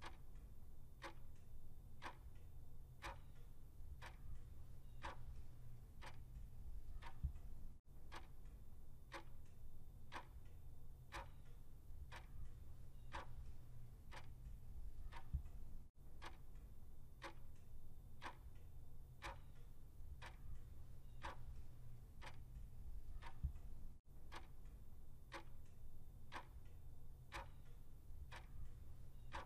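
Ticking-clock countdown sound effect: steady, even ticks about two a second over a low hum, marking the seconds running out to answer a quiz question.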